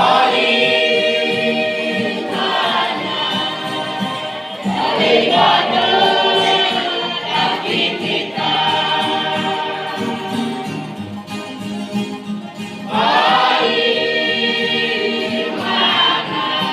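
Church youth choir singing a gospel song in the Mee language, in long held phrases with short breaks between.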